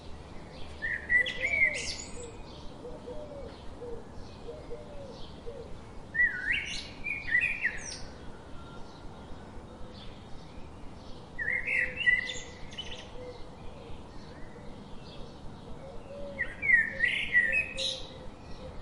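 Wild birdsong: one bird sings a short, loud phrase four times, about every five seconds, over a steady background of faint quick chirps from other birds and a faint lower warbling.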